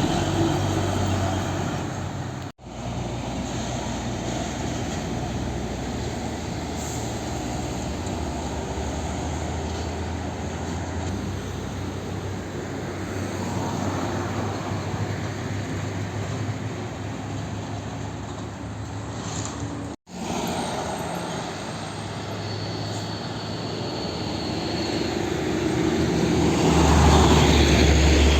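Road traffic with heavy diesel trucks passing: a steady engine drone and tyre noise, with a truck passing close and louder near the end. The sound cuts out for an instant twice.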